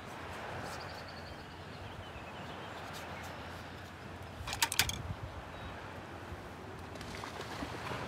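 Outdoor lakeshore ambience: a steady hiss of air and surroundings with a faint high chirp near the start, and a short rapid run of sharp clicks about halfway through.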